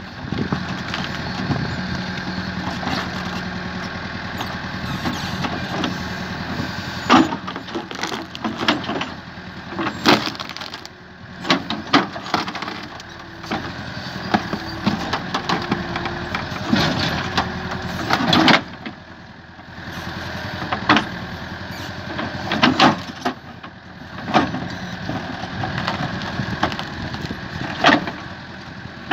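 Cat 428C backhoe loader's diesel engine running under load as the backhoe bucket digs out a large poplar stump. Frequent sharp knocks and cracks come from the bucket working through soil and roots, and the engine sound drops briefly a few times.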